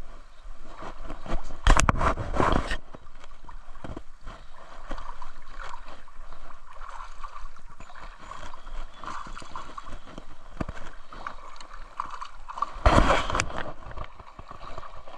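Creek water running and gurgling, with many small ticks. Two loud rushing bursts about two seconds in and again near the end.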